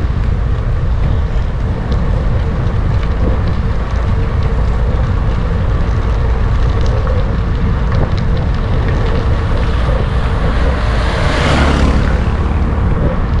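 Wind rushing over the microphone of a moving cyclist's camera, a steady low rumble, with a louder rush about eleven seconds in.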